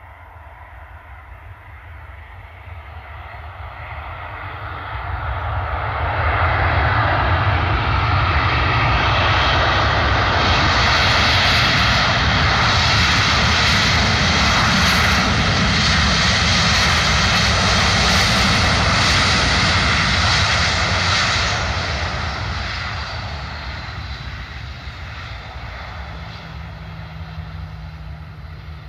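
Ryanair Boeing 737 jet airliner's engines running on the runway. A loud jet rush builds over a few seconds, holds for about fifteen seconds, then fades away as the aircraft moves off. A steady low hum is left near the end.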